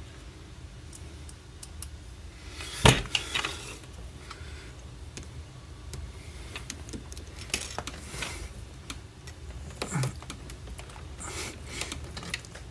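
Small metal clicks and rattles of screws and a hand screwdriver being handled, with a sharp knock about three seconds in and another about ten seconds in.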